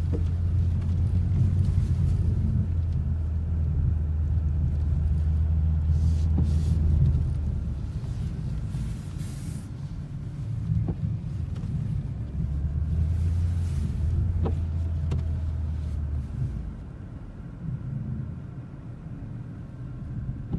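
A car driving on a snow-covered road, heard from inside the cabin: a steady low rumble of engine and tyres, with a few faint clicks. It dips for a few seconds midway and grows quieter over the last few seconds.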